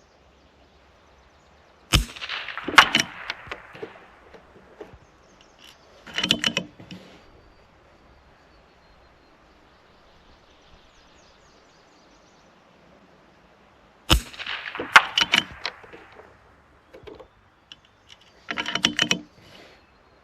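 Two .22 LR rifle shots, about 2 s and 14 s in, each a single sharp crack. After each shot come quick clicks and rattles, and a few seconds later another cluster of clicks, as the bolt is worked to eject the case and chamber the next round.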